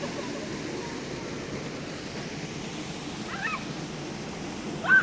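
River water flowing steadily over rocks, with a short pitched call about three and a half seconds in and a louder one right at the end.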